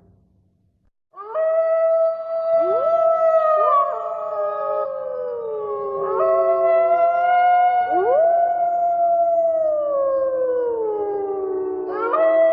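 Several Eurasian wolves howling together, starting about a second in: overlapping howls at different pitches, each sliding up into a long held note and then gliding down.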